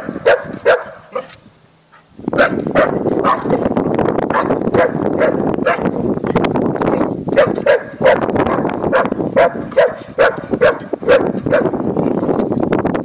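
Shar-pei barking repeatedly at a cat on a fence: a quick run of sharp barks, a short pause about two seconds in, then barks coming two or three a second over a steady rough noise.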